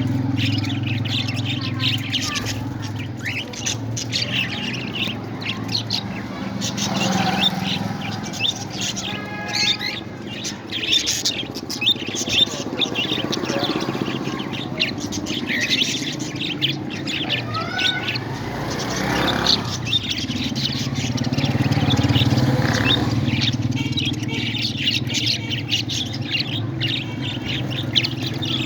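Pet parrots chirping and calling in quick, short notes throughout, over a steady low hum.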